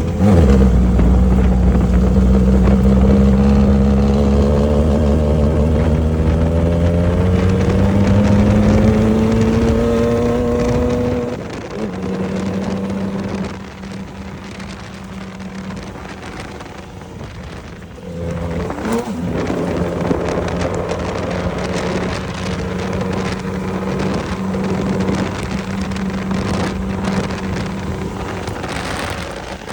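Off-road race vehicle's engine pulling hard, its pitch climbing steadily for about ten seconds before dropping off sharply. It then runs on at a lower, steadier note, with scattered knocks and rattles over rough ground.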